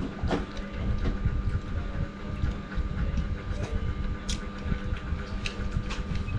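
Close-up chewing and mouth sounds of a person eating grilled chicken and rice by hand, with a few sharp smacks and clicks over a steady low rumble and hum.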